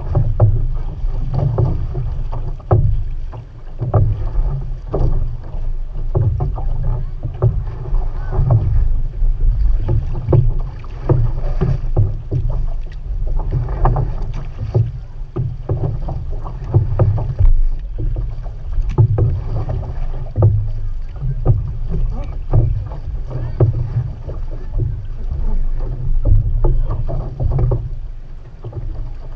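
Water rushing and splashing against an outrigger canoe's hull as the crew paddles, with irregular splashes over a heavy, uneven low rumble of water and wind against the camera.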